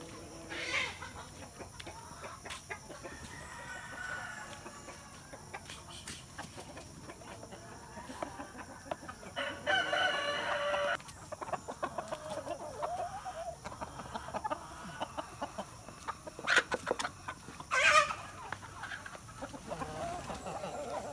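Free-range Rhode Island Red hens clucking at feeding time, with a rooster crowing once about ten seconds in, for a second and a half. Two loud short sounds stand out near the end.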